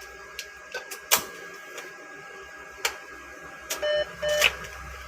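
ATM machine working: scattered clicks and mechanism noise over a faint steady hum, then two short electronic beeps about four seconds in.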